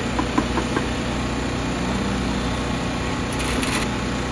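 Steady machine hum, with four light clicks in the first second and a short hiss about three and a half seconds in.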